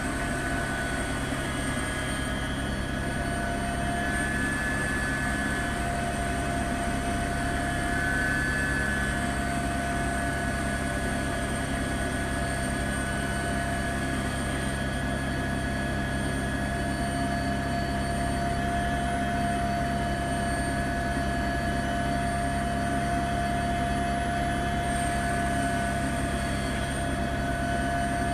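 Helicopter running steadily in flight: an unchanging engine and rotor drone with several constant high whining tones.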